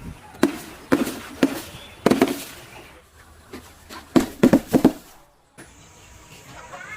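A run of sharp cracks and crunches of objects being crushed or broken. They come singly over the first two seconds, then in a quick cluster of four or five about four seconds in.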